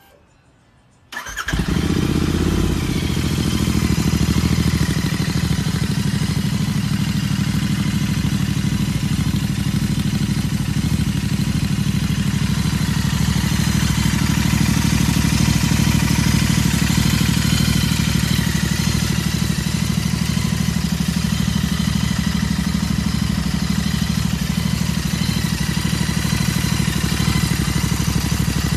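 Royal Enfield Continental GT 650's 648 cc parallel-twin engine, breathing through an aftermarket slip-on exhaust. It starts about a second in and then idles steadily and loudly.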